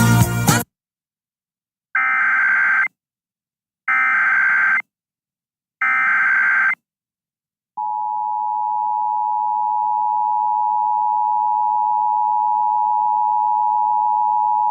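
Emergency Alert System tones. Three short bursts of the SAME digital header, a harsh data warble each just under a second long and about two seconds apart, are followed about eight seconds in by the steady two-tone EAS attention signal, which holds. Together they mark the start of a new Civil Danger Warning.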